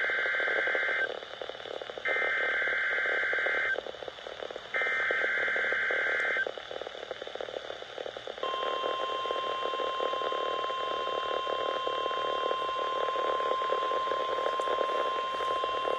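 NOAA Weather Radio Required Weekly Test heard through a weather radio's speaker. It opens with the buzzy SAME header data bursts: the end of one, then two more, each about a second and a half long with a second's gap between. About eight seconds in, the steady 1050 Hz warning alarm tone starts and holds.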